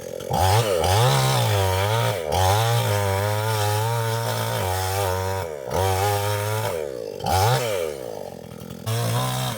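Chainsaw running and cutting wood, its engine revving up and sagging under load, with brief drops in speed several times between cuts.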